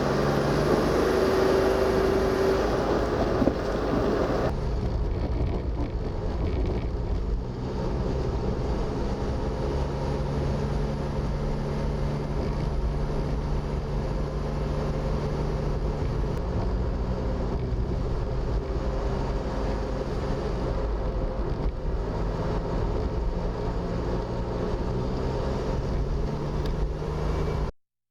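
Suzuki Every kei van on the move: steady engine and road noise. The hiss drops away suddenly about four and a half seconds in, and the sound cuts off just before the end.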